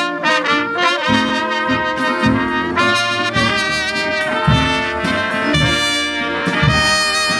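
Brass band playing a tune, trumpets carrying the melody over low bass notes.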